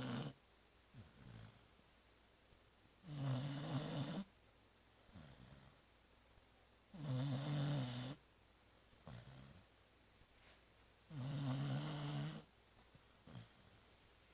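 Labrador retriever snoring in deep sleep: a loud snore lasting a little over a second comes about every four seconds, three full snores in all, each followed by a much softer breath.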